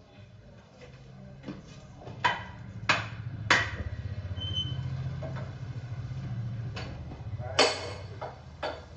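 Metal tools clanking and knocking against tractor parts, about seven sharp strikes spread unevenly, over a low steady hum that swells in the middle and fades near the end.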